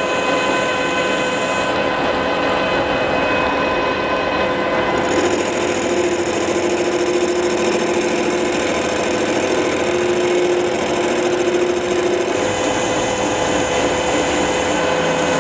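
Metal Master MLM 32100 metal lathe running with a steady gear whine while a carbide insert tool turns a metal bar, taking a light test cut. The cutting noise changes about five seconds in and again about twelve seconds in.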